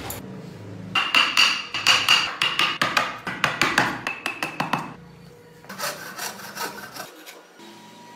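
Wood chisel cutting into a small wooden block: a quick run of sharp knocks, about four or five a second, then a shorter run after a brief pause.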